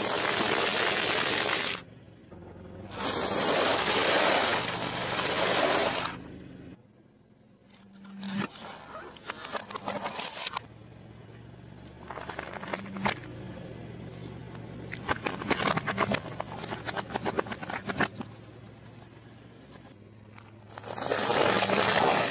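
Car tyre rolling slowly over food on pavement and crushing it. There are several loud, rough scraping crunches lasting a couple of seconds each, and in the middle a long run of sharp crackling snaps. The car's engine runs low and steady underneath.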